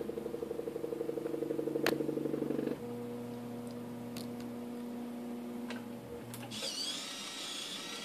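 Motors of a homemade automated coffee machine at work: a buzzing, pulsing motor as the coffee maker's lid swings open, with a sharp click about two seconds in. Then a steady electric hum, and from about six and a half seconds a higher stepper-motor whine that rises and falls as the grounds dispenser swings over the filter.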